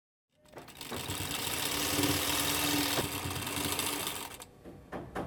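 Sewing machine running at speed, stitching decorative cord trim onto fabric: a fast rattle of needle and mechanism over a steady motor hum, starting about half a second in and stopping about four seconds in, followed by a couple of light clicks.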